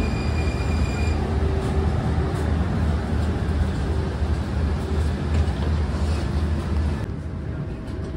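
Interior noise of the Alicante tram-train running along the line: a steady low rumble and rolling noise with a faint high whine that stops about a second in. The noise eases off about seven seconds in.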